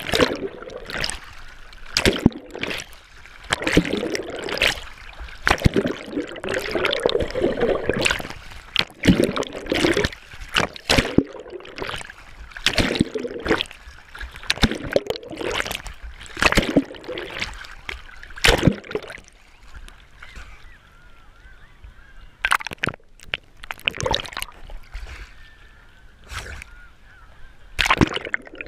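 Seawater splashing and sloshing against a GoPro's waterproof housing as it bobs at the surface among small waves and a swimmer's strokes, in many sharp splashes with muffled gurgling in between. The splashing eases for a few seconds about two-thirds of the way through, then picks up again as the camera dips under.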